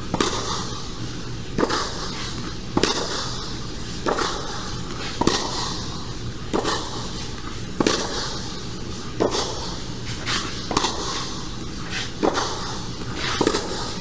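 A tennis rally: a ball struck back and forth with racquets, the near one a Wilson Ultra 100 v4.0 strung with Luxilon polyester. Sharp hits come about every second and a quarter, about a dozen of them.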